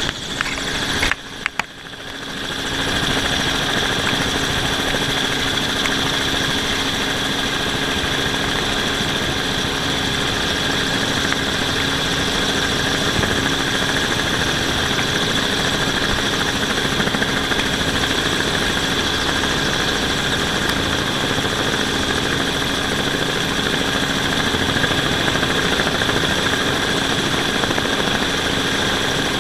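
Helicopter in flight heard from inside the cabin: a steady engine and rotor drone with a constant high whine. The sound briefly dips about a second in, then holds steady.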